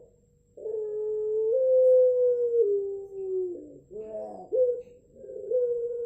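Puter pelung, a long-cooing variety of Barbary dove, giving its drawn-out coo: one long held note of about three seconds that rises a step and then falls in steps. It breaks off with a rougher note near the four-second mark, then a second long coo begins.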